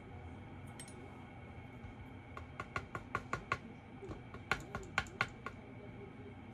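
Small sharp metal taps and clicks from working a stuck pin out of a disassembled BKS Janus lock: a quick run of about seven taps, then after a short pause a second run of about five.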